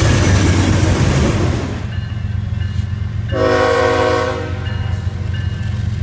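Freight train passing close by, its wheels and cars making a loud rushing clatter that drops away about two seconds in. Then a GE locomotive's Nathan Airchime K5HL five-chime horn sounds one short blast of about a second over a low steady rumble.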